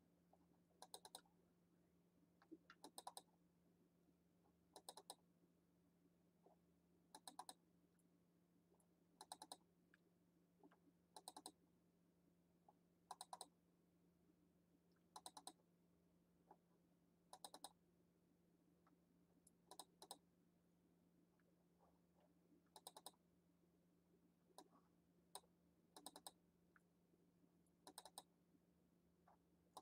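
Computer mouse clicking in quick pairs or triples about every two seconds, faint, over a low steady hum.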